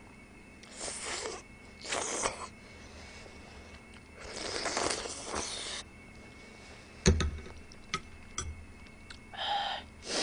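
Someone slurping seafood noodle-soup broth from a ladle, three times, the last slurp long. Then a knock and a few light clicks of ceramic bowl and metal ladle on the table.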